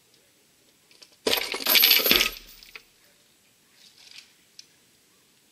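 Stump-pulling lever rig giving way under tension: the wire cable slips out of its Easy Grip clamp and the laminated timber beam falls, with a sudden loud crash and a clatter of steel chain lasting about a second, starting just over a second in. A few faint knocks follow.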